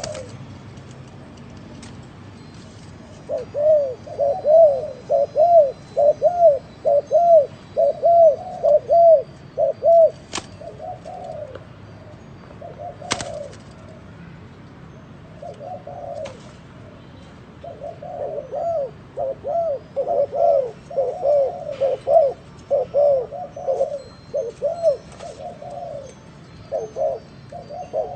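Spotted dove giving its bowing coo: rapid runs of short, arched coos, about two a second, in two long bouts with a pause of a few seconds between them. Two sharp clicks fall during the first bout and the pause.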